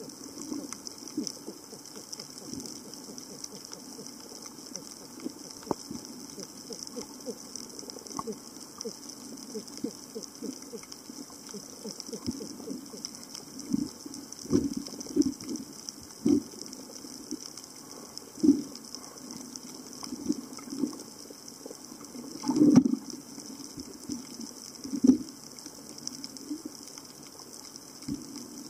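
Underwater ambience picked up by a submerged camera: a steady hiss with fine scattered crackling, and from about halfway a series of short, low, muffled bursts, the loudest about three quarters of the way through.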